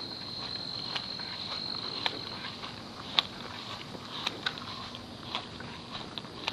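Insects trilling in one steady high note that fades about two and a half seconds in. Scattered small clicks and knocks from footsteps and handling run underneath.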